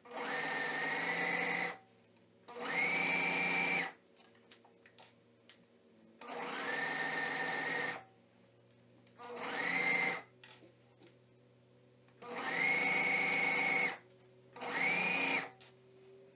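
Serger (overlock sewing machine) stitching in six short runs of one to two seconds each. Each run revs up quickly to a steady high whine and stops sharply. Faint clicks and fabric handling fill the pauses between runs.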